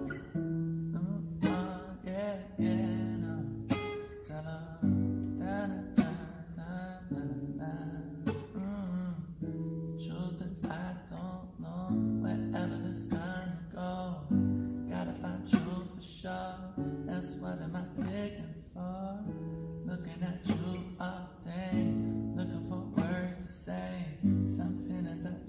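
Acoustic guitar strumming and picking chords in a slow song intro, with the chords changing every second or two.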